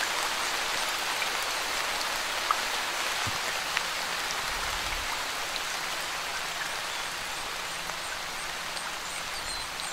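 Steady hiss of water splashing from a garden fountain into its basin, even throughout.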